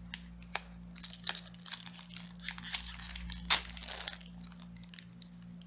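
Foil wrapper of a Pokémon booster pack crinkling and tearing as it is ripped open: a run of irregular crackles, loudest about three and a half seconds in.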